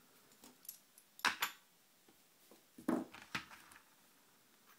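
Small metal lock parts clicking and clinking as the pins and springs of a gutted euro cylinder are handled: a few scattered light taps, the loudest pair about a second and a quarter in and another cluster around three seconds in.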